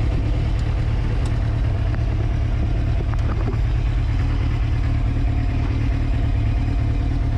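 Motorcycle riding at a steady speed: a loud, steady low rumble with a constant drone above it and no revving.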